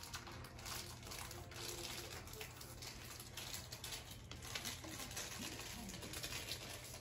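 Faint soft rustling and scattered small clicks over a low steady hiss.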